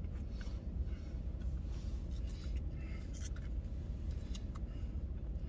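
Faint crinkling, clicking and rustling of fast-food packaging being handled, including a plastic honey mustard sauce cup, over a steady low rumble inside the vehicle cab.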